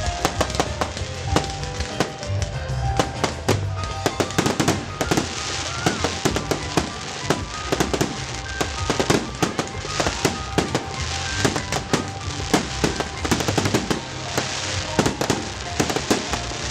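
Fireworks display: a dense run of sharp bangs and crackles from bursting shells, over music played with the show.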